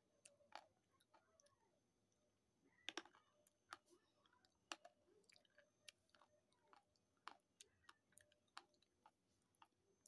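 Faint close-up chewing of a hard, chalky mouthful, heard as scattered sharp crunches and clicks with quiet gaps between.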